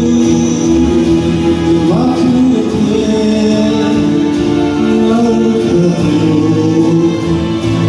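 A man singing with long held, wavering notes over a karaoke backing track.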